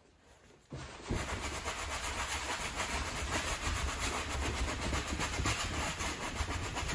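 Wide flat paintbrush scrubbing acrylic paint back and forth over a stretched canvas textured with crumpled aluminium foil: a steady rasping rub with a low rumble, starting just under a second in.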